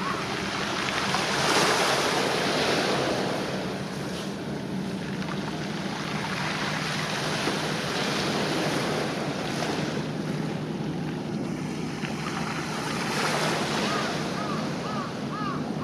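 Small waves washing against the shore, surging twice, with wind buffeting the microphone and a steady low hum underneath. Near the end a faint, quickly repeated chirp comes in.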